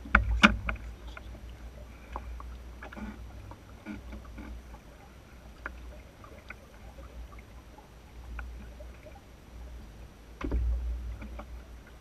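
Enterprise sailing dinghy under way: a low rumble of water and wind against the hull and mounted camera, with scattered knocks and clicks from the boat. Two sharp knocks come right at the start, and the rumble swells about ten and a half seconds in.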